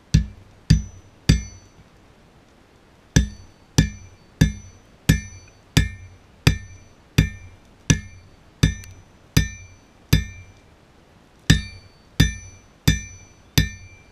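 Hammer striking hot steel on an anvil, a steady run of blows about one and a half a second, each with a short metallic ring. The blows come in three runs, with pauses of about two seconds near the start and a little over a second past the middle.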